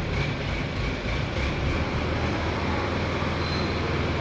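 A heavy diesel engine running steadily, with a low, even hum.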